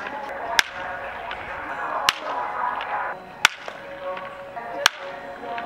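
Four sharp cracks of baseballs at practice, evenly spaced about a second and a half apart.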